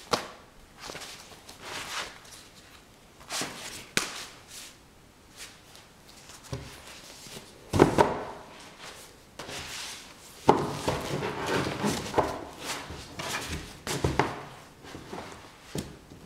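Irregular knocks and taps mixed with short scraping or rustling sounds. The loudest is a pair of knocks about eight seconds in, and a few seconds of denser rustling start a little after ten seconds.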